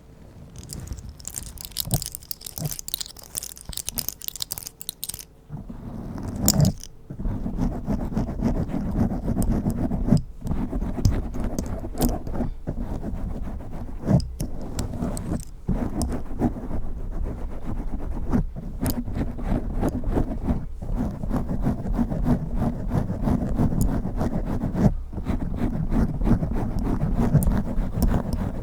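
Fingernails and nail rings scratching fast over a microphone. For about the first five seconds the scratching is lighter and thinner. From about six seconds in it becomes dense, rapid scratching with heavy close-up rubbing and frequent sharp clicks.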